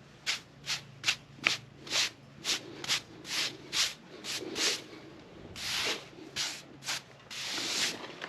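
Repeated rubbing or brushing strokes across the freshly sawn face of a pignut hickory slab, about two to three a second, with a few longer, slower strokes in the second half.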